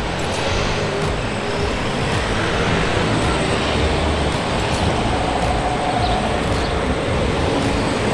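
Steady city road traffic noise with a heavy, uneven low rumble.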